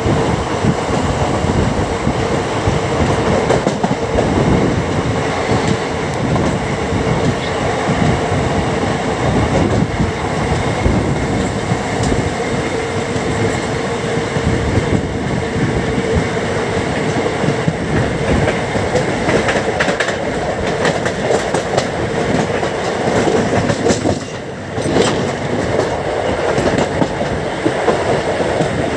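Andaman Express passenger train running at speed, its wheels clattering over the rails with a steady tone running through the rumble. The noise eases for a moment near the end, then returns.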